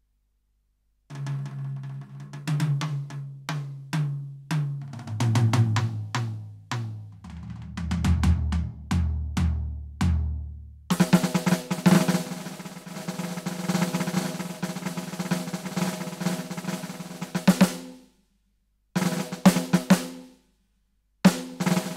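Roland TD-17 electronic drum module's drum sounds: single tom strokes stepping down in pitch from high tom to floor tom, then a long fast snare roll. After a short pause come a brief fill and the start of a beat near the end.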